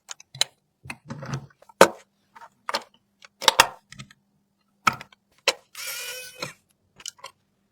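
Computer parts being handled and fitted during a PC build: a string of sharp plastic and metal clicks and knocks, with one longer rasping scrape about six seconds in.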